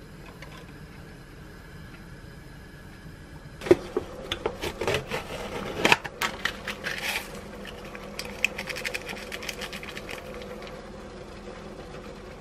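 Paper-foil lid of an instant cup noodle being peeled back and its packaging handled: a burst of crinkly crackling and sharp clicks that starts a few seconds in and thins out near the end, over a faint steady hum.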